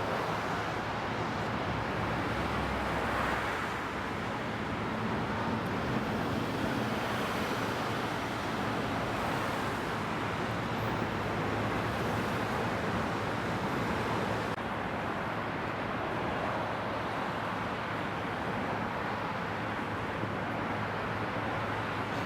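Steady wash of road traffic noise from cars crossing the bridge, an even hum with no single vehicle standing out.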